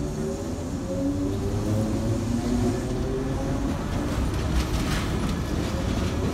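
Trensurb electric multiple-unit commuter train pulling out of the station and gathering speed past the platform: a steady rumble of wheels on rail with a motor whine that rises in pitch in the first few seconds. A few sharp clicks come about five seconds in.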